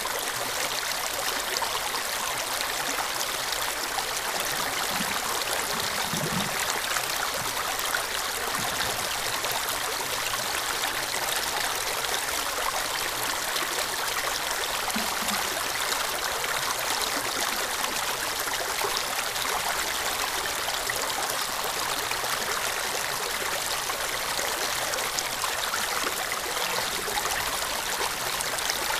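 Shallow stream flowing over and around rocks, a steady sound of running water.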